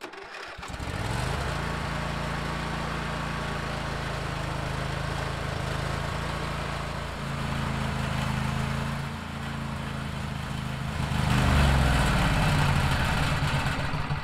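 A John Deere riding lawn tractor's engine cranks briefly and starts, then runs steadily at idle while it is left to burn off the fuel left in its system. From about eleven seconds in it runs louder and its pitch wavers.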